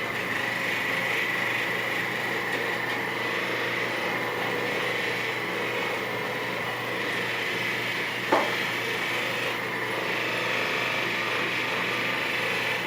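Percussion massage gun running steadily on the back muscles: an even motor hum with a thin high whine. One sharp click about eight seconds in.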